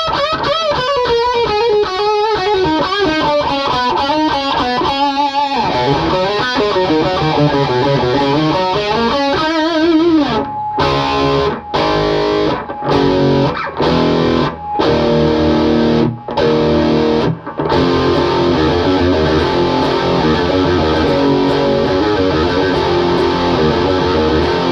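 Zemaitis Z22EC single-cut electric guitar played through a Friedman Runt 20 amp with heavy distortion. The first half is a lead line of held notes with wide vibrato and slides. About ten seconds in it changes to a stop-start chord riff with short breaks between the hits.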